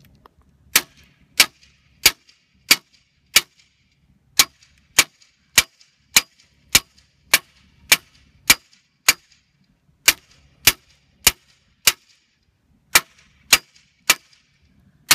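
A hammer pounding a yard sign's stake into the ground: about twenty sharp blows a little over half a second apart, in runs of three to nine with short pauses between.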